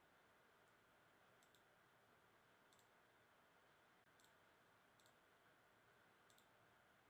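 Near silence: faint room hiss with thin, sharp clicks about once a second.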